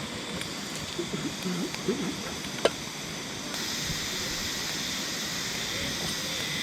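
Steady rushing of a clear forest river. A single sharp click sounds just before three seconds in, and a little past halfway the hiss turns suddenly brighter and fuller.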